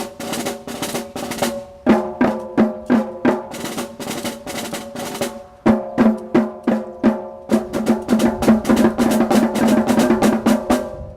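Drumline playing a fast drum cadence on snare and bass drums, with quick rolls that thicken toward the end.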